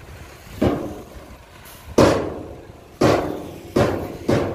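Steel tipper body and tailgate of a Hyundai 5-ton dump truck banging as the bed comes down after dumping soil: five loud metal clangs at uneven intervals, each ringing out briefly.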